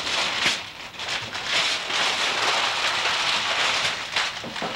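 Wrapping paper rustling, crinkling and tearing as a present is unwrapped.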